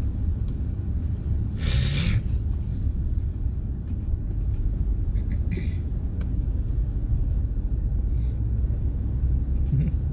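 Steady low rumble of city road traffic, with a short hissing rush about two seconds in.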